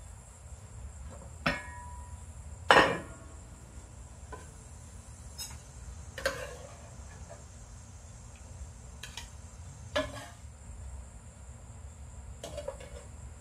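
A serving utensil clinking and scraping against the pot and a plate as fish and gravy are dished up: about eight scattered knocks, the loudest about three seconds in. A steady high insect drone runs behind.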